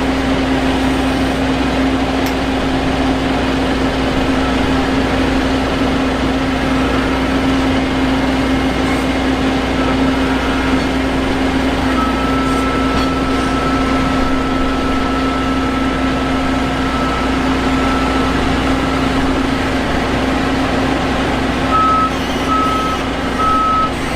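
Heavy diesel machinery engine running steadily. About halfway through a continuous high warning tone starts, and near the end it becomes a reversing alarm beeping about once a second.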